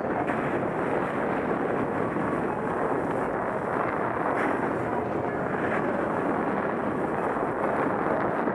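Steady scraping rush of a rider sliding down groomed snow, mixed with wind buffeting the microphone.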